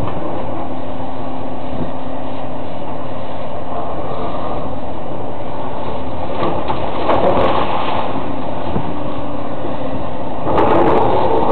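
Demolition machinery running steadily, with louder crunching and clattering of breaking building material about two-thirds of the way through and again near the end.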